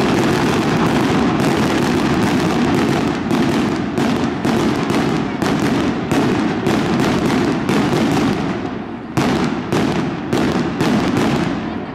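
Fireworks going off in a rapid string of sharp bangs over a dense, continuous rumble, thinning out and dying away near the end.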